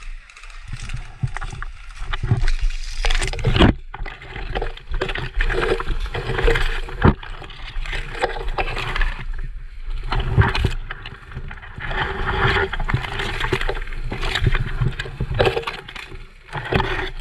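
Tall grass and weeds rustling and brushing against the body and camera as a person pushes through them, in irregular bursts with low rumbling handling noise from the jostled camera.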